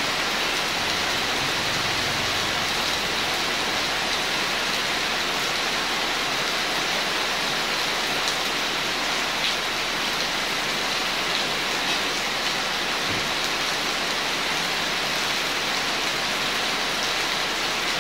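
Steady rain falling, an even unbroken hiss with a few faint drip ticks.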